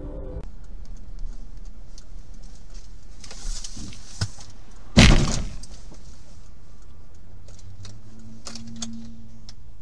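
One loud bang about five seconds in: a motorcycle striking the front of the car, heard from inside the car over its steady running noise. A few light knocks and clicks follow.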